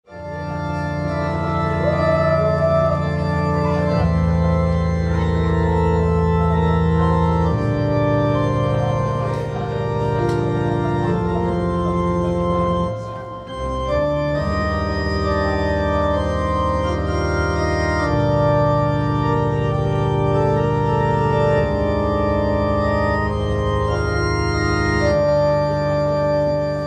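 Stage keyboard playing slow, sustained organ chords over low bass notes, the chord changing every two to four seconds, with a short break about thirteen seconds in.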